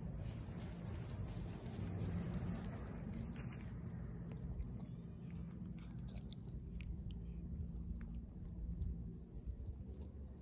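Cat chewing and biting into a whole raw fish, a scattering of small crunching clicks, over a steady low rumble.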